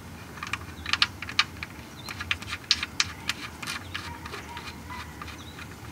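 Small sharp clicks and ticks in a quick, irregular run, thinning out over the last couple of seconds, as an oil drain plug is turned back into the oil pan by hand.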